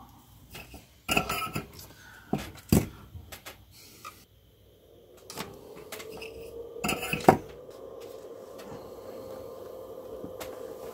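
Small electronic parts and tools being handled on a workbench: a few scattered clicks and knocks, the loudest about seven seconds in. From about halfway a steady hum sets in, its pitch rising a little and then holding.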